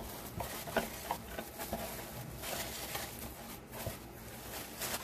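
Artificial pine garland being fluffed and pressed into a wooden box by hand: an irregular crackling rustle of plastic needles with scattered small clicks.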